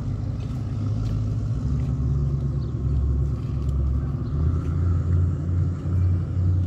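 Motorboat engine running with a steady low rumble, its pitch stepping up a little about four seconds in.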